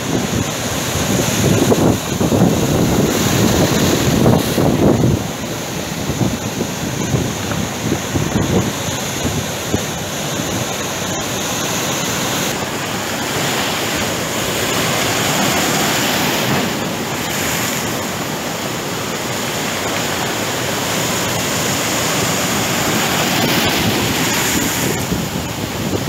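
Rough sea surf: waves breaking and foaming as they wash ashore, with heavier surges in the first few seconds and then a steadier wash.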